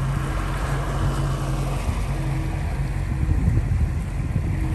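Boat engine running steadily with an even low drone as the boat moves under way, with a rush of wind on the microphone in the second half.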